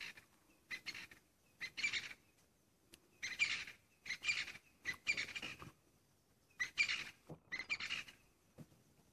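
A bird calling repeatedly in short, high bursts, roughly one a second, with a quicker run of calls in the middle.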